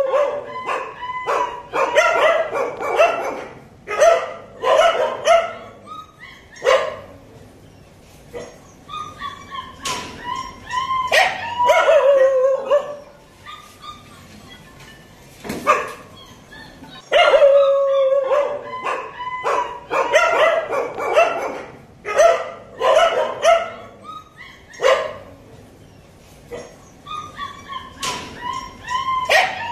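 Fifteen-day-old Kanni puppies whining and yelping, with high-pitched cries coming in bouts of several calls and short pauses between the bouts.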